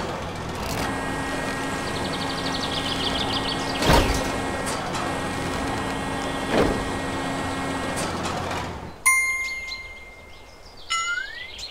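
Small electric motor of a remote-control toy crane whirring steadily as it lowers a load, with a brief fast ticking and three clunks. After about nine seconds it stops; a bright chime rings out, followed by rising, whistle-like cartoon sound effects near the end.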